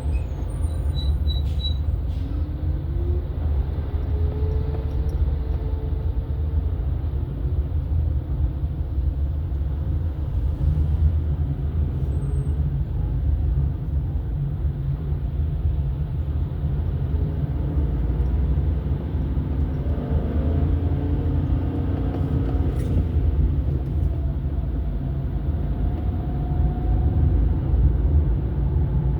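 Steady low rumble of a moving vehicle or road traffic, with faint engine tones rising and falling now and then.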